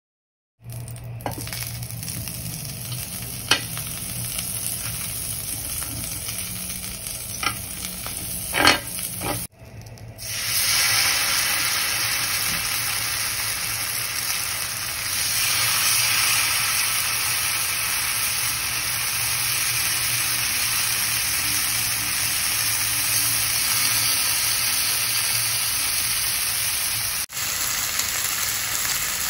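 Tandoori-marinated chicken pieces sizzling in hot oil on a grill pan: a loud, steady sizzle from about ten seconds in. Before that there is a low steady hum with a few sharp clicks.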